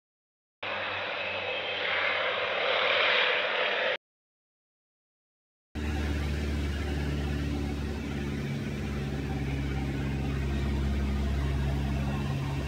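A rushing noise swells for about three seconds and then cuts off. A couple of seconds later a light airplane's engine starts droning steadily, heard from inside the cockpit.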